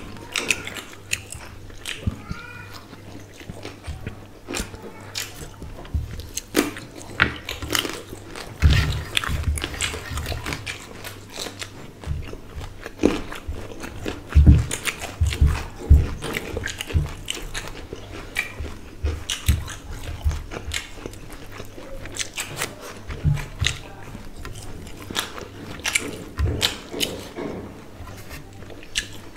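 Close-miked eating sounds: chewing with wet mouth clicks and lip smacks, as two people eat rice and curry with their hands, in an irregular run of short smacks with a few louder thumps.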